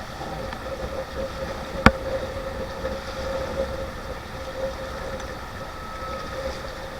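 Rushing river water and wind on the microphone from an inflatable raft, with a faint steady tone underneath and a single sharp knock about two seconds in.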